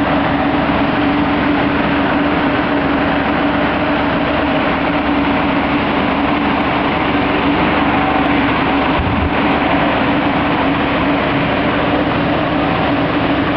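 Gas-engine inflator fans running steadily, blowing air into hot air balloon envelopes laid out on the ground, with a constant hum under the noise of the air.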